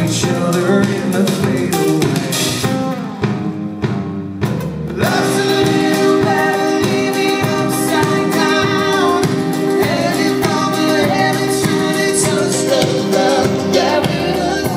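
Male lead vocal singing a melodic line over live band accompaniment; the music dips briefly about four seconds in, then comes back fuller with held chords.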